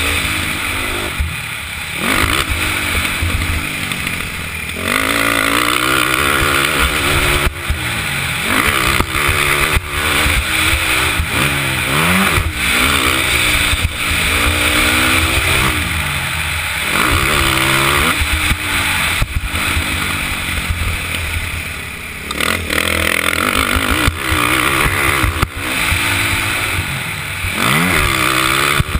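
KTM 450SX's single-cylinder four-stroke engine revving hard at racing speed. Its pitch climbs and drops back again and again as the rider accelerates, shifts and rolls off. There are a few sharp knocks along the way.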